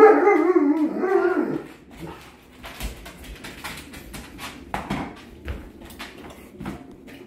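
Alaskan malamute giving an excited whining howl, its pitch wavering, that dies away about a second and a half in. Faint scattered clicks and taps follow.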